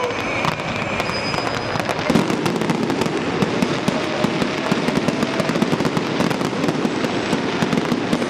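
Fireworks display: a dense, continuous crackle of bursting shells and crackling stars, growing heavier about two seconds in.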